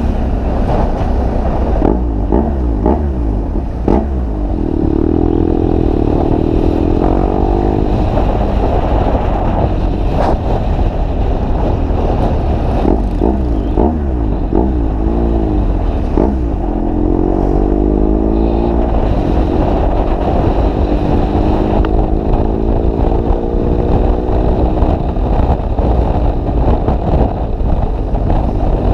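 BMW R1200GS Adventure's boxer twin running through an SC Project GP aftermarket exhaust while riding, over a steady low rumble of wind and road noise. The engine pitch climbs as the bike accelerates about five seconds in, and again in a long slow climb from about 17 to 25 seconds.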